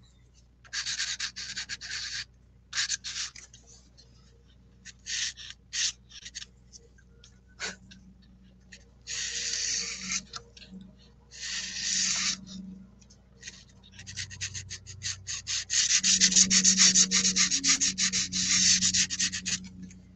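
Hard pastel stick scraping and rubbing across paper in short strokes, in separate bursts, then a quick, dense run of back-and-forth strokes over the last few seconds, the loudest part.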